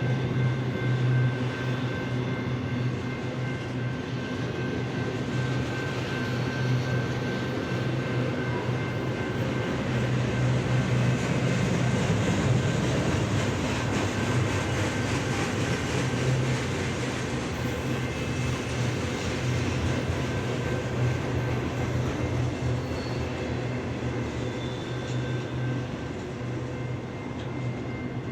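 BNSF intermodal freight train rolling past: a steady rumble of wheels on rail that swells slightly in the middle and then eases.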